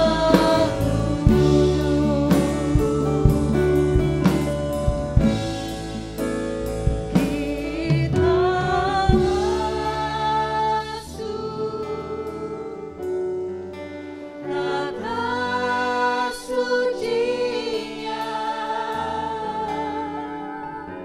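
Worship music: singers with a live band, drum kit beating through roughly the first eight seconds, then the drums mostly drop out and the song goes on softer with long held vocal notes.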